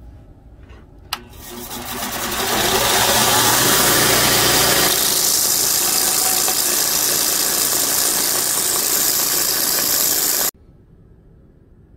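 Belt grinder starting after a click about a second in, coming up to speed over a second or two, then running steadily as its abrasive belt sands a wooden knife handle. It stops abruptly near the end.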